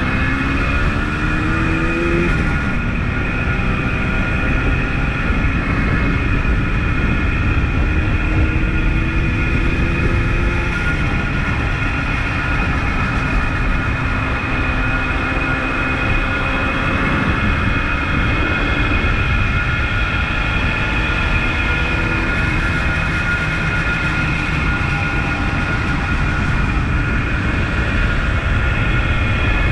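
1976 Suzuki GT185's two-stroke twin engine running under way. Its pitch climbs as it accelerates, drops at a gear change about two seconds in, then climbs and eases again over a steady hiss.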